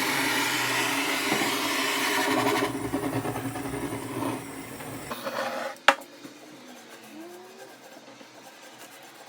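A small electric motor whirring steadily, then cutting out about five seconds in, with a sharp click soon after.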